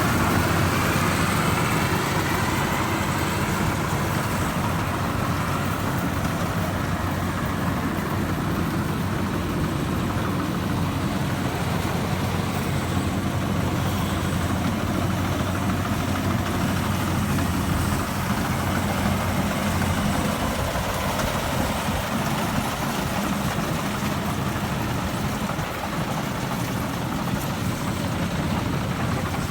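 Rice combine harvester running steadily, its engine and machinery giving a continuous even drone.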